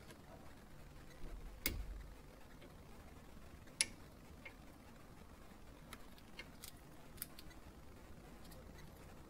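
Faint scattered clicks and taps of hands and a tool working at the bleeder screw of a front brake caliper while the brakes are bled into a catch bottle. There is a dull knock about a second and a half in and a sharp click near four seconds.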